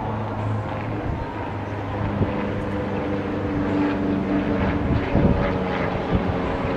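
Small single-engine propeller airplane's piston engine droning steadily as it flies overhead, its engine note shifting about two seconds in.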